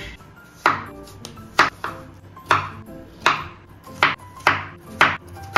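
Kitchen knife chopping a pale green vegetable on a wooden cutting board: about eight sharp chops, coming a little quicker toward the end.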